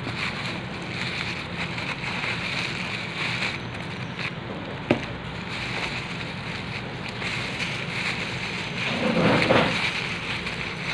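Bubble-wrap packaging rustling and crinkling as it is handled and pulled out of a box, with a sharp click about five seconds in and a louder burst of handling about nine seconds in.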